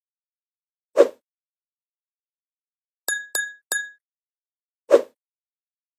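Three quick ringing clinks of a hammer striking a metal stake, set between two single dull thuds, one about a second in and one near the end.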